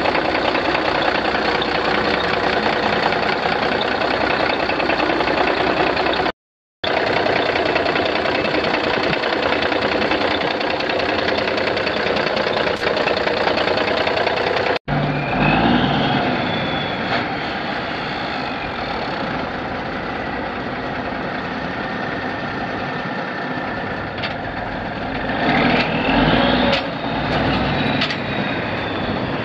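Kenworth C500 truck's 10-litre six-cylinder diesel engine running steadily, dropping out twice for a moment. In the second half a faint high whine rises and falls over it.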